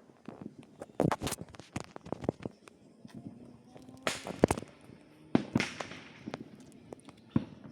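Distant fireworks going off: irregular bangs and pops in quick clusters, about a second in, around four to four and a half seconds, around five and a half seconds and once more near the end.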